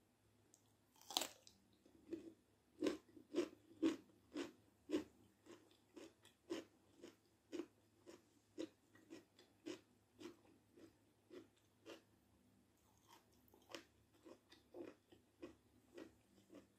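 Raw cucumber stick bitten with a crisp crunch about a second in, then chewed in crunches about two a second that are loudest at first and slowly fade.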